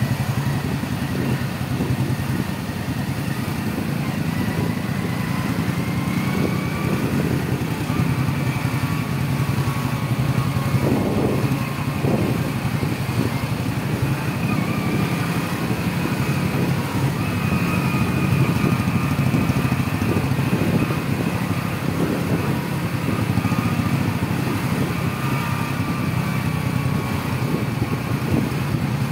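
Motorbike engine running steadily at low speed in slow, dense road traffic, a continuous low hum with other vehicles around it.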